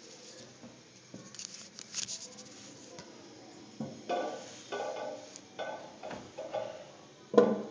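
Porcelain tank lid of a vintage Kohler Bolton toilet being lifted off and handled: a series of ceramic scrapes and clinks, ending in a loud clunk near the end.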